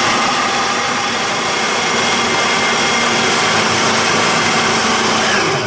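Countertop food processor motor running steadily, blending a salmon, bread and cream mixture into a mousse.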